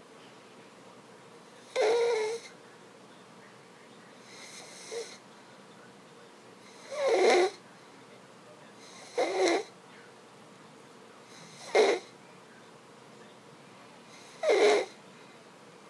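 Stridor in a sleeping baby the day after his tracheostomy tube was removed: six harsh, noisy breaths about two to three seconds apart, each carrying a squeaky pitched tone, one of them much fainter than the rest.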